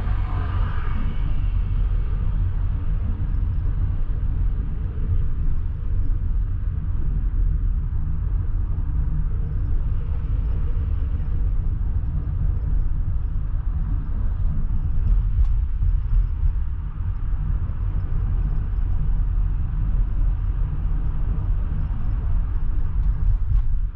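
A car driving along a city avenue, its road and engine noise a steady low rumble.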